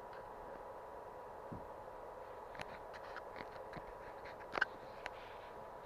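Faint steady electrical hum and hiss with a thin high tone held throughout, from the powered bench electronics. Over it, a scattered run of small clicks and taps comes in about halfway, with one sharper click near the end.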